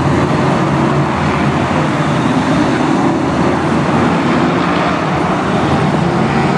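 BriscA F1 stock cars' V8 engines running together as the pack races round the oval, a steady, dense engine noise with no single car standing out.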